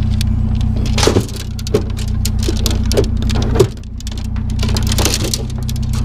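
A bundle of long thin metal rods clattering and rattling as it is handled and set among scrap in a pickup bed, with several sharper knocks about one, two, three and three and a half seconds in. A vehicle engine idles steadily underneath.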